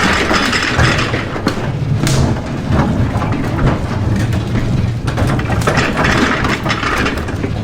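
Heavy scissor lift being shoved along by hand: a continuous rolling rumble with scattered knocks and rattles.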